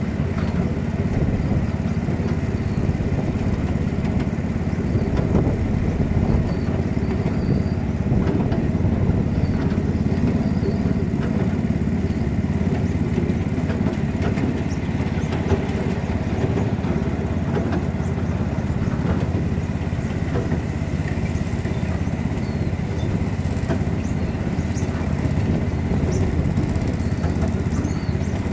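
Ride-on miniature railway train running along its track: a steady low rumble with no letup, heard from a passenger car.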